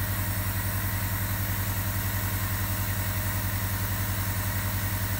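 Compressor nebulizer running: a steady mechanical hum with a fast, even pulse.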